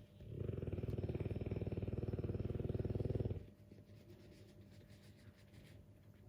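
Dogue de Bordeaux snoring in its sleep: one long fluttering snore of about three seconds, then much quieter breathing.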